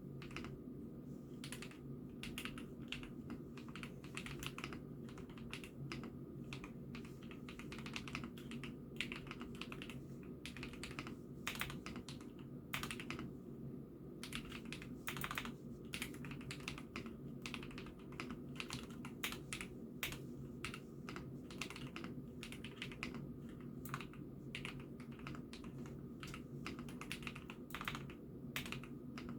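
Continuous typing on an IKKI68 Aurora mechanical keyboard: a fast, irregular patter of keystroke clacks, over a steady low hum.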